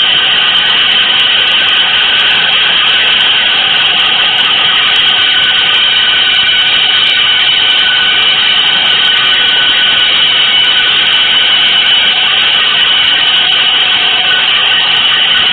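Loud, steady noise drone from an experimental electronic piece: a dense, harsh hiss sitting high in the middle range, with a few faint held tones inside it, unchanging in level.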